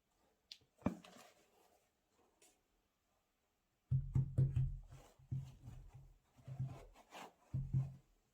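Hands handling trainers and their packaging: a sharp click about a second in and some light rustling, then from about four seconds in a run of low thuds with rubbing and scuffing.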